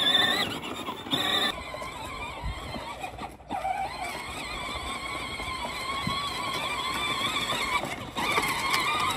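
Battery-powered Peg Perego John Deere ride-on toy tractor driving, its electric drive whining with a pitch that wavers as it rolls over rough ground. The whine breaks off and resumes abruptly a few times.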